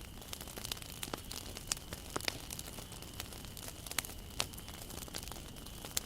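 Wood bonfire burning, with irregular sharp crackles and pops of the burning wood over a steady low rumble and hiss.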